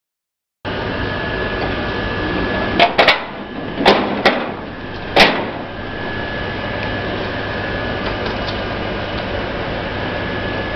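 Coal-fired boiler furnace and plant machinery running: a steady rushing noise with a low hum and a high steady whine, starting abruptly about half a second in. A handful of sharp knocks come between about three and five seconds in.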